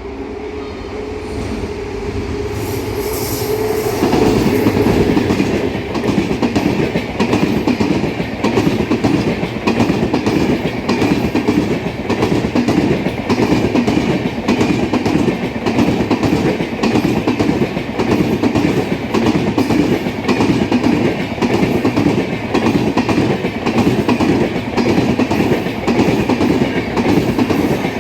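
A Rajdhani Express hauled by a WAP-7 electric locomotive passing. The locomotive's sound builds over the first four seconds, then the coach wheels clatter over the rail joints in a steady, fast rhythm that carries on.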